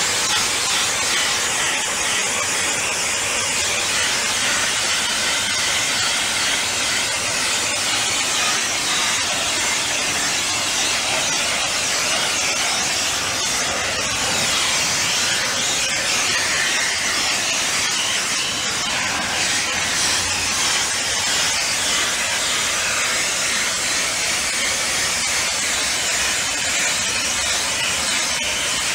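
Slurry-blasting nozzle running continuously, a steady loud hiss as the jet of compressed air, water and abrasive strikes the steel deck, stripping corrosion and washing off salt.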